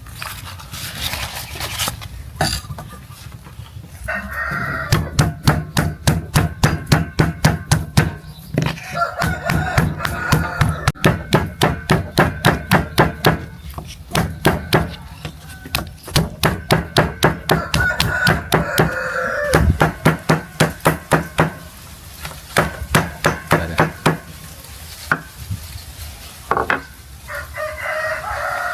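Steady chopping, about three strokes a second, broken by short pauses. A rooster crows several times over it.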